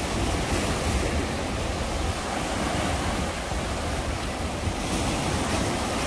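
Sea waves breaking and washing over the rocks in a steady surf, with wind rumbling on the microphone.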